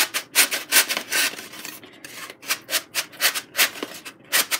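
Foamboard wing being pushed and worked through the slot in a foamboard fuselage: a quick, irregular series of short rubbing scrapes of foam board against foam board.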